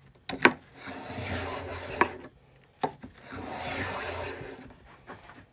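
Hand plane shaving a wooden chopstick blank with the grain, the correct direction to avoid tear-out: two long planing strokes, each about one and a half seconds, with a light knock as a stroke begins or ends.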